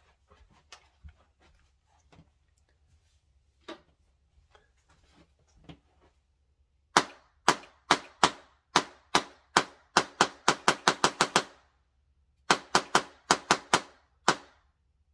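Handheld Tesla coil gun firing spark discharges, one sharp snapping crack per trigger pull. After some faint clicks, the cracks come in a run that quickens to several a second, pause briefly, then come in a second run.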